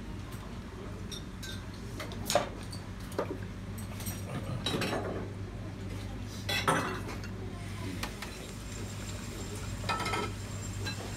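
Dishes and utensils clinking and clattering in a ramen shop kitchen and counter, a few sharp clinks with the strongest about two seconds in and near seven seconds, over a steady low hum.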